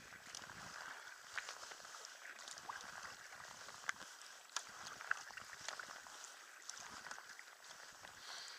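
Kayak paddling on sea water: the paddle splashing and water dripping, a steady wash with many small sharp drips and ticks scattered through it.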